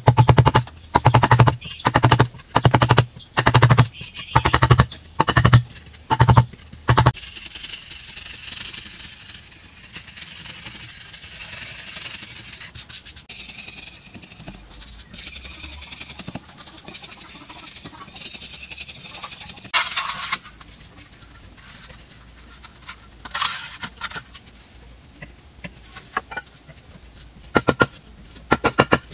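A hand chisel knocked into a soft carved wall, about two blows a second for the first several seconds. Then a steady scraping as the carving is pared and smoothed with the blade, with two louder scrapes later on.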